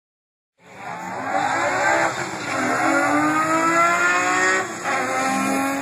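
Naturally aspirated 2.7-litre BMW M20 stroker inline-six in an E21 at full throttle on a drag run, starting abruptly about half a second in. Its pitch climbs steadily through each gear, with brief drops at the gear changes.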